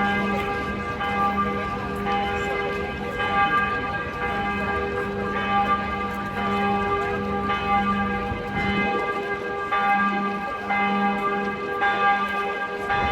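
Notre-Dame Cathedral's church bells ringing in a peal, several bells struck in turn about once a second, their tones overlapping and ringing on.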